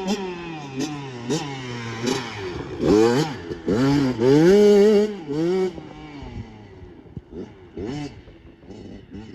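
Dirt bike engine revving hard with its pitch repeatedly climbing and dropping through the gears. It is loudest a few seconds in, then fades.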